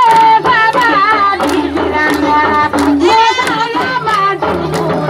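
Several voices singing together over a steady percussive beat of sharp strokes.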